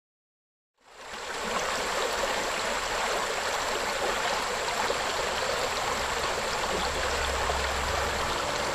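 Water of a pressurized karst spring welling up and churning at the river's surface, a steady rushing and gurgling that starts about a second in.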